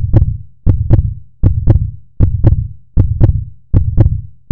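Heartbeat sound effect: a steady lub-dub of two low thumps per beat, repeating a little under 80 times a minute.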